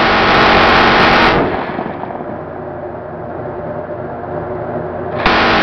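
Mk 44 six-barrel 7.62 mm minigun firing long bursts, the shots coming too fast to tell apart. One burst stops about a second in and another starts near the end, with ship and wind noise in between.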